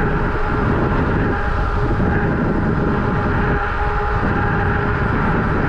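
Steady wind buffeting on the microphone of a camera riding a moving electric fat-tire bike. The mic's windscreen is broken. A faint steady whine runs underneath.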